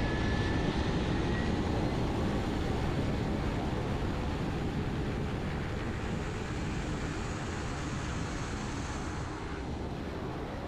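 Cessna Grand Caravan's single turboprop engine running at low power while the aircraft taxis, a steady drone that slowly grows a little quieter.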